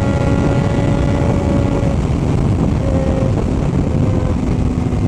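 Motorcycle engine running under way at fairly steady revs, easing off slightly about three seconds in.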